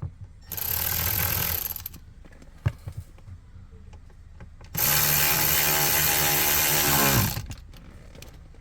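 A cordless drill-driver running twice to drive Torx screws back into the dash trim: a short run, then a longer one of about two and a half seconds whose motor winds down in pitch as it stops. A sharp click falls between the two runs.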